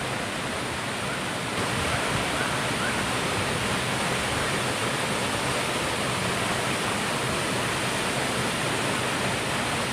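Waterfall rushing with a steady noise, a little louder from about a second and a half in.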